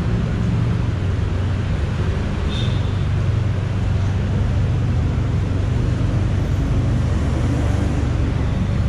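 City street traffic: a steady low rumble of engines and road noise, with a brief faint high tone about two and a half seconds in.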